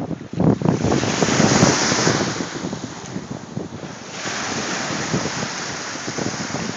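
Small lake waves breaking and washing up a sandy beach, with wind buffeting the microphone. A louder rush of surf and wind comes about half a second in and lasts a couple of seconds, then the wash settles to a steady level.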